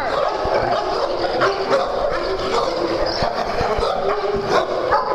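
Several dogs barking and yipping over one another in rough play, a busy, continuous din of short, sharp calls.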